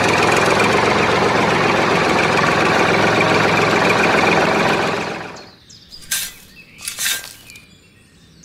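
Tractor engine running steadily, fading out about five seconds in. It is followed by two short scrapes of a small trowel in sand.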